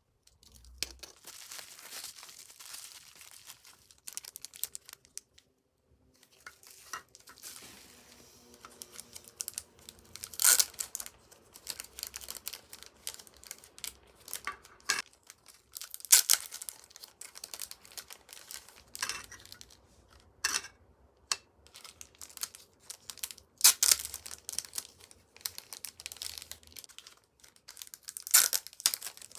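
Merchandise packaging being torn open and crinkled by hand: stretches of rustling with several sharp, loud rips, and a brief pause about five seconds in.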